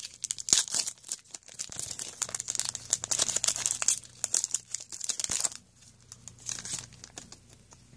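Plastic wrapper of a trading-card pack crinkling and tearing as it is pulled open and the cards are slid out. The crackling dies down about five and a half seconds in, leaving a few softer rustles as the cards are handled.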